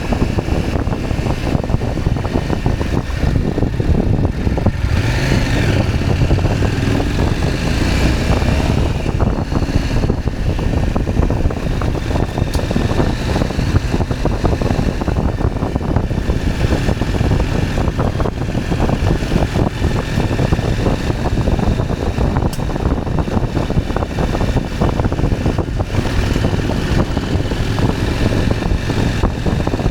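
KTM 790 Adventure's parallel-twin engine running steadily while the motorcycle is ridden along.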